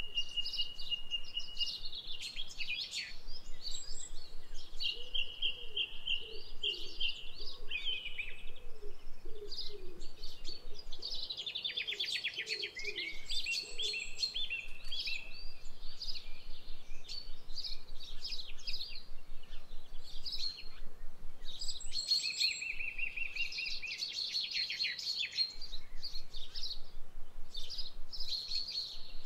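Several birds singing and calling over one another: high chirps, fast trills and held whistled notes, with a lower repeated call underneath for several seconds in the first half.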